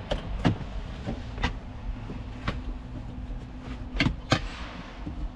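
A truck engine idling steadily, under irregular knocks and clicks of things being handled, the loudest a pair about four seconds in.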